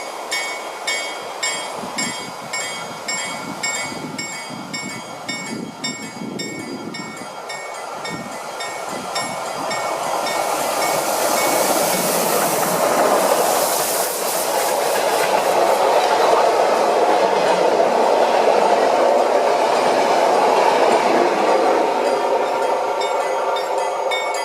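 A level-crossing warning bell rings about twice a second. From about eight seconds in, a steam train grows louder and passes, its wheels clattering on the rails, while the bell keeps ringing underneath.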